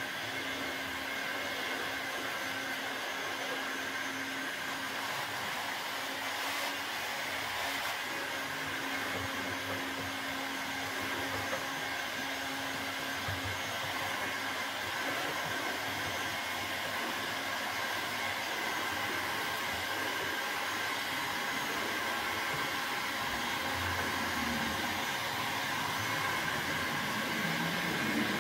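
Bosch Professional heat gun blowing with a steady whir. It is heating an old cricket bat sticker to soften its glue so it can be scraped off.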